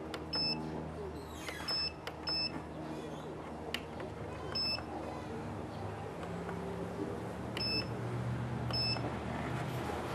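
Turnigy 9X radio transmitter beeping as its menu keys are pressed: six short, high key beeps at uneven spacing.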